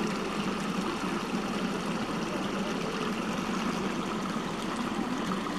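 Water rushing steadily down a narrow concrete irrigation channel.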